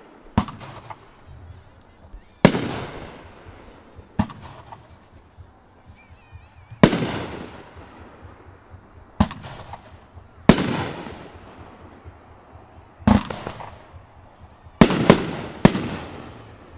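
A Flashing Fireworks "Dirty Dozen" consumer firework cake firing its shots. About ten sharp bangs come at uneven gaps of one to three seconds, each trailing off over a second or two, with three in quick succession near the end.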